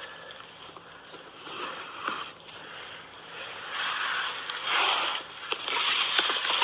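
Rustling and zipping of a hunting blind's fabric as people climb in, swelling in two long noisy stretches over the second half.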